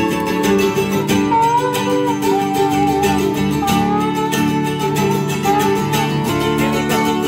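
Instrumental break from a live string band: acoustic guitars and a mandolin playing chords under a lead guitar line that slides between notes.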